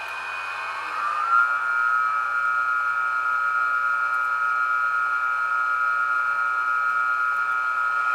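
Sound decoder in a model of the BLS Re 475 Vectron electric locomotive, playing the whine of the traction converters through the model's small loudspeaker. The whine rises in pitch about a second in, as the locomotive speeds up, then holds steady.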